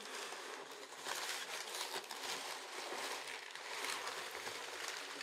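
Crumpled packing paper rustling and crinkling as it is pulled out of a cardboard box, a steady crackle.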